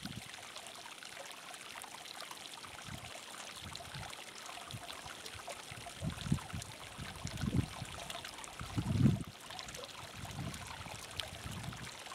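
Water trickling steadily at a hot-spring pool, with three low rumbles in the second half, the loudest about nine seconds in.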